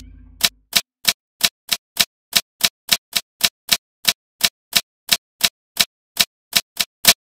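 Typewriter key clicks used as a sound effect, one sharp click about three times a second as each letter of on-screen text appears. The tail of a held organ chord fades out in the first half-second.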